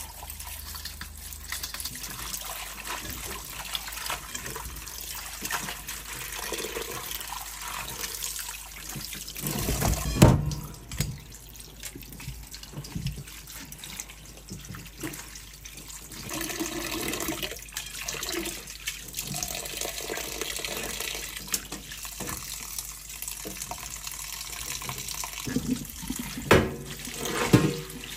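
Tap water running into a stainless-steel sink while soaked mushrooms and glass noodles are rinsed in a mesh strainer and glass bowl, with splashing. A louder thump comes about ten seconds in, and a few sharp knocks near the end.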